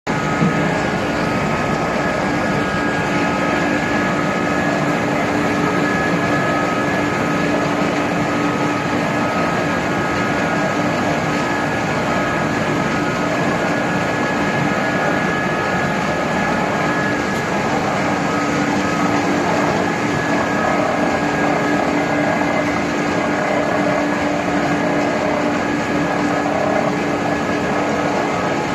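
Machinery of a wood sawdust pellet production line running, with the XGJ560 pellet mill among it. It makes a loud, steady industrial drone with several constant hum tones that does not change throughout.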